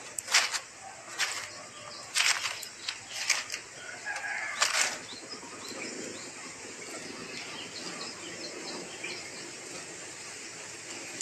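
Short dry rustles, about one a second for the first five seconds, as a coucal chick shifts and struggles in its nest of dry fibres while trying to swallow a rat. After that only a faint steady hiss remains.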